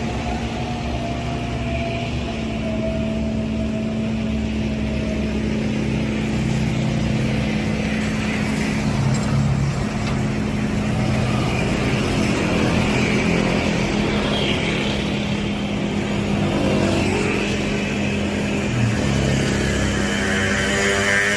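Motor vehicle running steadily with an even engine hum and low rumble, with a rising tone near the end.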